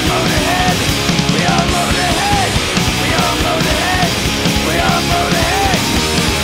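Loud rock music with a dense, steady sound and a short melodic figure repeating about once a second.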